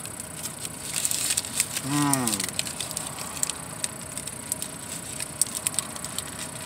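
Paper burrito wrapper crinkling in the hand while the burrito is eaten: a scatter of sharp crackles, busiest in the first half. About two seconds in, the eater gives a short hum that falls in pitch.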